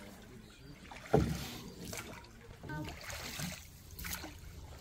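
Water lapping and splashing around a small rowing boat moving across shallow spring water, with a short thump about a second in.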